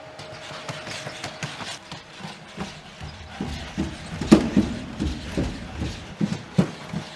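Boston Dynamics SpotMini quadruped robot walking: its feet knock on the wooden floor and stair treads in irregular clacks. The clacks get heavier and more frequent from about three seconds in as it steps down the stairs, the loudest a little after four seconds.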